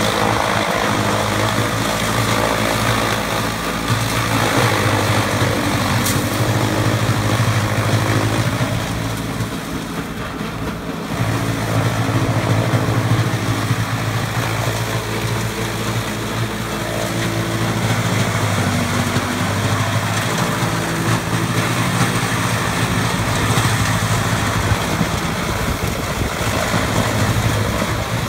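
Chaff cutter (forage chopper) running while dry stalks are fed into it: a steady machine drone under a dense rushing noise of stalks being chopped and blown out of the discharge pipe. The sound dips briefly about ten seconds in, then picks up again.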